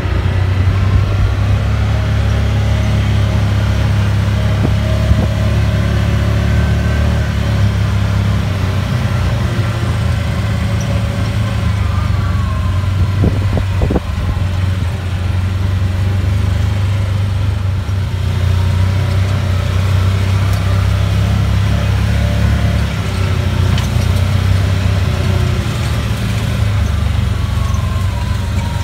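Off-road vehicle engine running steadily as it drives along a bumpy dirt trail, with a couple of short knocks about halfway through.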